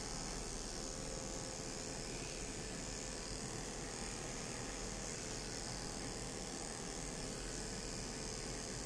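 Corded electric grooming clippers running steadily while trimming a shih tzu puppy's fur.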